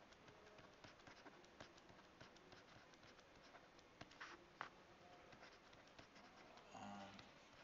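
Faint tapping and scratching of a stylus writing by hand on a tablet: a string of light clicks, with two sharper taps about four and a half seconds in.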